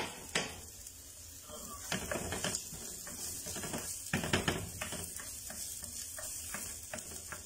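Sliced onion and garlic sizzling in hot oil in a frying pan, with a spatula scraping and knocking against the pan as the onion is stirred while it softens.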